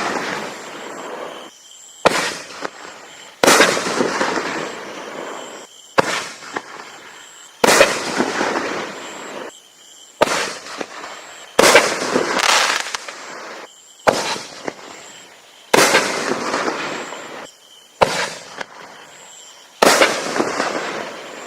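Raccoon Fireworks 'Camo Blast' firework going off in a steady series of about ten loud bursts, one roughly every two seconds, each with a sudden start that fades away over a second or so.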